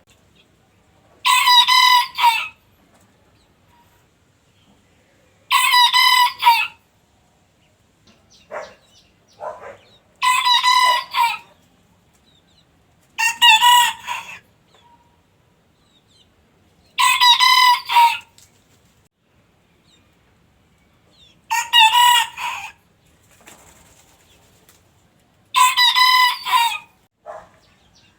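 A rooster crowing seven times, about every four seconds, each crow just over a second long. A few softer, shorter calls come between the crows.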